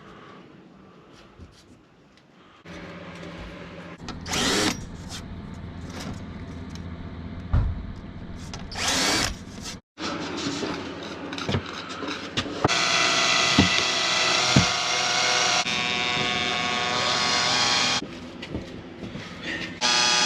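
Power tool working plywood, its motor running in spells of several seconds with short loud bursts between them. The sound cuts out abruptly about halfway through, then comes back as a strong, steady whine that stops and restarts near the end.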